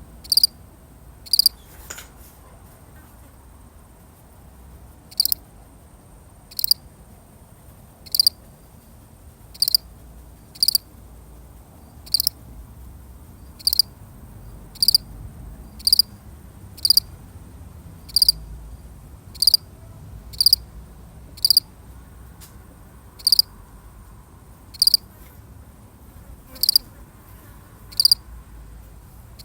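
A single field cricket chirping: short, high chirps repeating about once every second to second and a half, with a pause of about three seconds near the start.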